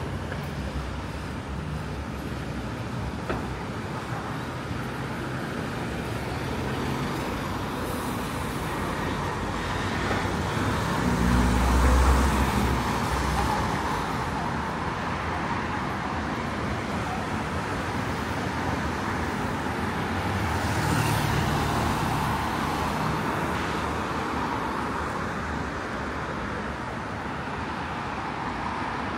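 Steady city road traffic noise from passing cars and buses, with a heavy vehicle's low rumble swelling to the loudest point about halfway through and a smaller swell near two-thirds of the way.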